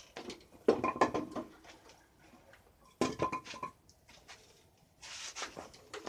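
Metal tools and bolts clinking and rattling during work on a motorcycle clutch cover, in two short bursts of sharp clinks about a second in and again about three seconds in, then a softer scraping rustle near the end.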